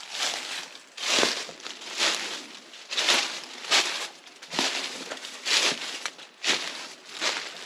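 Footsteps crunching on dry forest floor at a walking pace, about one step a second.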